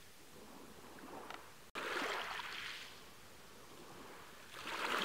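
Small waves washing in: a soft hiss of water that swells about two seconds in and again near the end.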